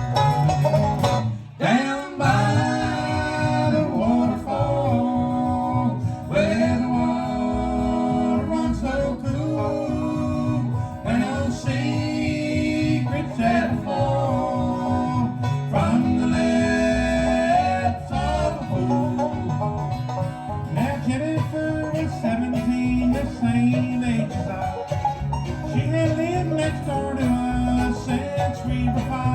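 A bluegrass band playing an instrumental passage, with banjo and guitar to the fore. There is a brief drop about a second and a half in, then the music carries on steadily.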